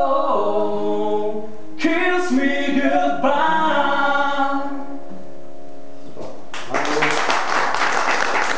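A man and a woman singing the last long held notes of a duet over an acoustic guitar, the notes fading out about six seconds in. Applause breaks out about a second later.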